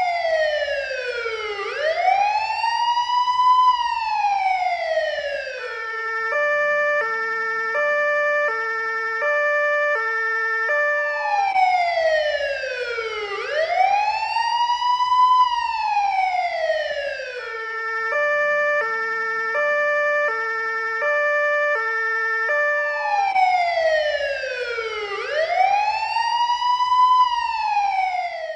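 Police car electronic siren cycling through its modes. A slow wail sweeps down and back up, then switches to a hi-lo two-tone that alternates about twice a second. The whole pattern repeats every twelve seconds or so, three times over, with a faint low rumble beneath.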